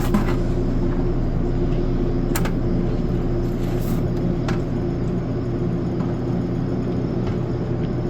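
Steady electric hum of a commercial dehumidifier and circulation fans running in a firewood drying kiln, with a few faint clicks.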